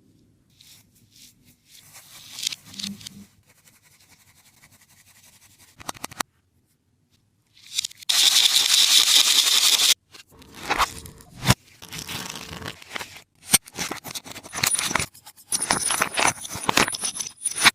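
Taba squishy being scraped, cut and torn: short scratchy, crinkly bursts and clicks broken by abrupt silences, with a loud steady rustle lasting about two seconds around the middle.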